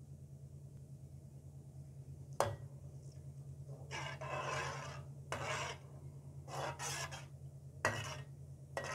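Slotted metal spoon stirring onions and chillies in heating water in a pan, scraping along the pan in a few rasping strokes, with sharp clinks of the spoon against the pan now and then. A steady low hum runs underneath.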